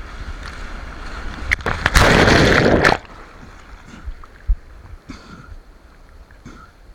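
Ocean water sloshing and splashing in the surf, with a loud rush of water about two seconds in that lasts about a second.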